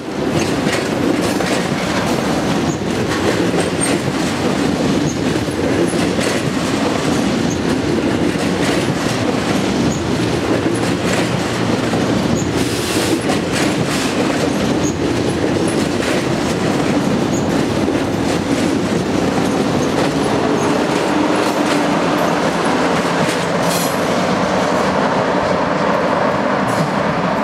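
SNCF TGV high-speed trainsets rolling past one after another, the wheels clicking over rail joints and points, with brief high wheel squeals now and then.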